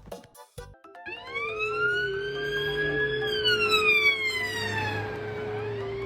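Siren wailing: from about a second in its pitch glides slowly up, then slowly down, and starts rising again near the end, over a steady lower tone.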